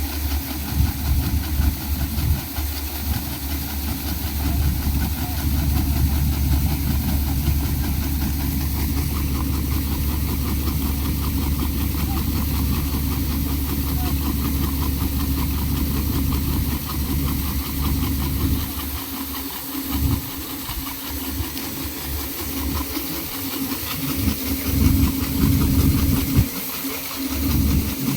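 Engine of wheat-harvesting machinery running steadily, with a constant hiss over a low hum.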